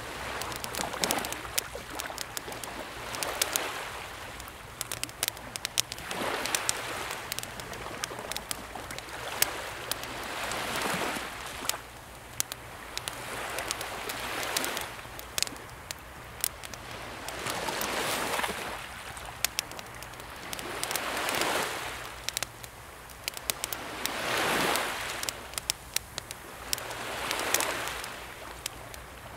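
Wood campfire crackling with frequent sharp pops, over small, calm sea waves washing in and drawing back about every three to four seconds.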